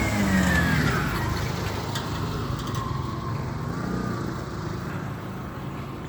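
A motor vehicle's engine passing close by, its pitch falling in the first second as it goes past, then fading away.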